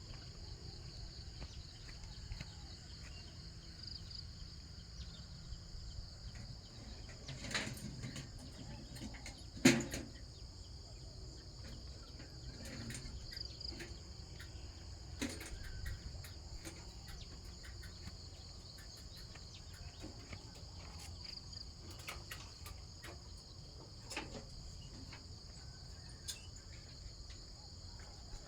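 Steady high-pitched insect chorus, with a few sharp knocks, the loudest about ten seconds in.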